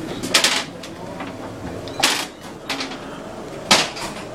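Three short clattering knocks, about a second and a half apart, over a steady low hum.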